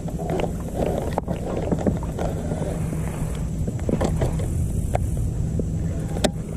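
Steady low hum of a boat's motor, with scattered light clicks from a baitcasting reel being handled and one sharp click about six seconds in.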